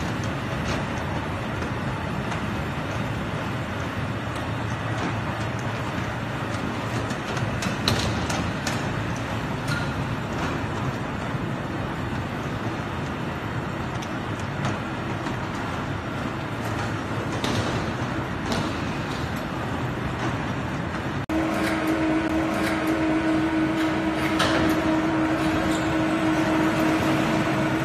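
Machinery noise of a magnesium oxide board production line: a steady running noise with scattered knocks and clatter. About three-quarters of the way through the sound changes abruptly to a steady machine hum with a clear pitch.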